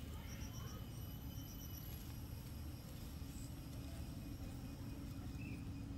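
Outdoor background ambience: a steady low rumble with two short runs of rapid, high-pitched chirps in the first two seconds.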